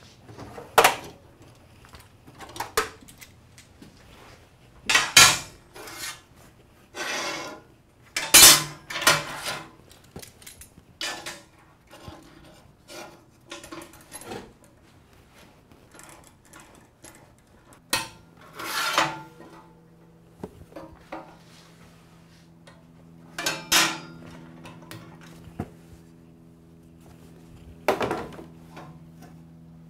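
Steel tools and parts clanking, knocking and scraping on a steel welding table as vise grips and a metal square are set and clamped: a dozen or so irregular knocks with gaps between them. A faint steady hum comes in about two-thirds of the way through.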